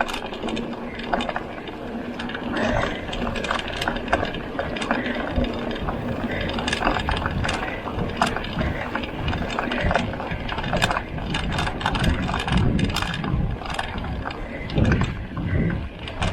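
Mountain bike in motion: the rear freehub ticking as it coasts, mixed with irregular knocks and rattles of the bike and a steady low rumble.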